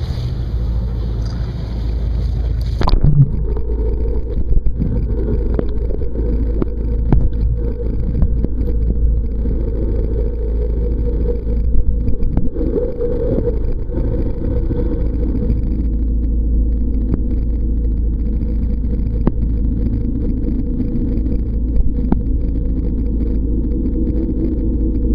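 Muffled, steady low rumble of water and the boat heard through an underwater camera housing, with scattered sharp clicks and knocks. About three seconds in, the sound changes abruptly as the higher sounds drop away, as when the camera goes under the surface.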